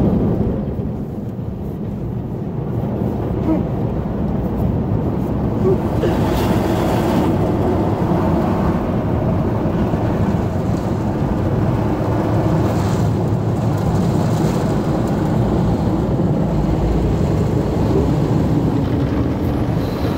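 Automatic brush car wash heard from inside the car: water and rotating brushes working over the body make a steady, loud rushing noise. Brief louder hissing passes of spray come about seven seconds in and again around thirteen to fifteen seconds.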